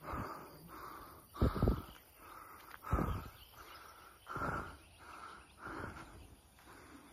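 Footsteps of a person walking at an even pace, about one step every 0.7 seconds, with a heavier thud on every second step.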